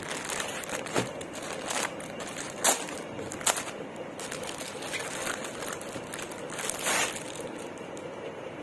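Clear plastic garment packet crinkling and rustling as hands handle it and slide a folded kurta set out, in irregular crackles with a longer rustle near the end.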